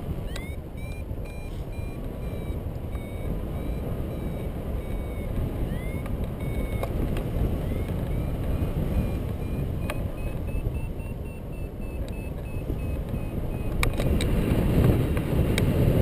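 Wind rushing over the microphone in flight, growing louder near the end, with a paragliding variometer's faint, repeated short beeps whose pitch drifts up and down, the tone a variometer gives while the glider climbs.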